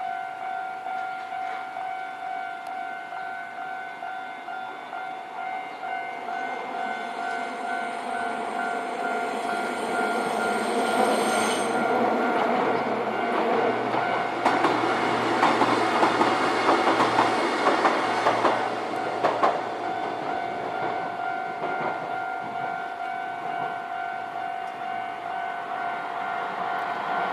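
Japanese level-crossing warning bell ringing in a steady, regular ding-ding throughout. Partway through, a Nankai Railway electric train passes over the crossing: its noise builds, wheels clatter over the rail joints in a run of sharp clacks, and the noise then eases while the bell keeps ringing.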